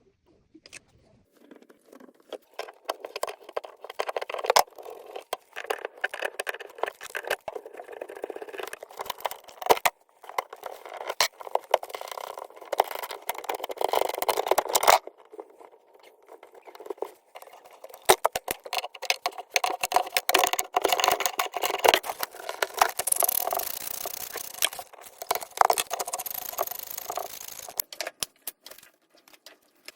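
Clattering and scraping of hand tools and faucet parts being handled: a rapid, irregular run of clicks, rattles and rasps, broken by a few short pauses.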